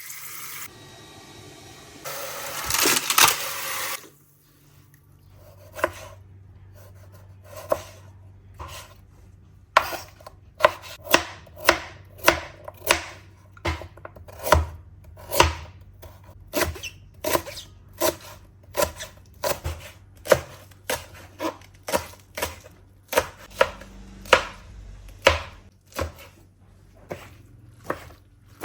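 Knife chopping food on a cutting board: steady single chops, a few spaced strokes at first, then a regular rhythm of about one and a half chops a second. A brief rushing noise comes about two seconds in, before the chopping, and a faint low hum runs underneath.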